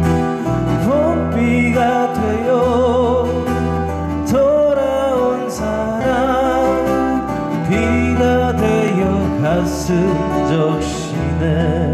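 A man singing a slow Korean pop ballad with vibrato on long held notes, accompanied by two strummed acoustic guitars.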